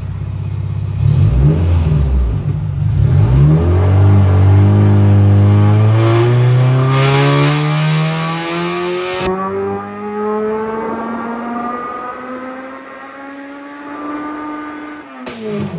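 Turbocharged Honda B16A3 four-cylinder run wide open on a hub dyno, exhaust open through the downpipe and midpipe with no muffler, heard from inside the cabin. Its pitch climbs steadily as the revs rise toward redline. A loud hiss joins about seven seconds in and cuts off suddenly about two seconds later, and a sharp loud burst comes near the end.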